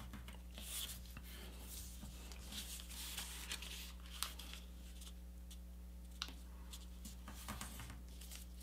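Faint rustling and sliding of a sheet of printer paper being folded and creased by hand, with a few soft clicks, over a steady low hum.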